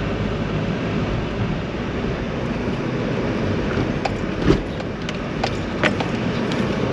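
A car driving slowly, heard from inside the cabin: a steady low rumble of engine and tyres, with a few light clicks and knocks between about four and six seconds in.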